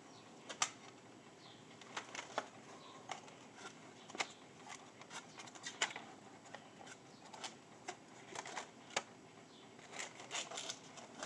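Faint, scattered clicks and taps of a fold-out Blu-ray case being handled, its card panels and plastic disc trays knocking as they are turned.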